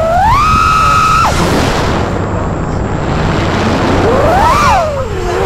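FPV freestyle quadcopter's motors and propellers whining: the pitch climbs and holds on a throttle punch for about a second, then cuts out into a rushing, windy noise, and near the end a second whine swells up and falls away.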